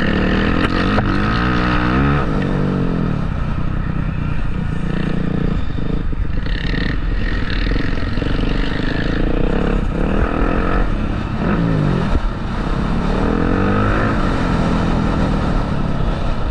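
Motocross dirt bikes running on a track, more than one engine at once, their pitch repeatedly rising and falling as they rev up and back off.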